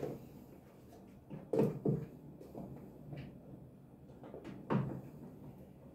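A few clunks and knocks of washing-machine parts being handled and fitted, the loudest two close together about a second and a half in and another near the end.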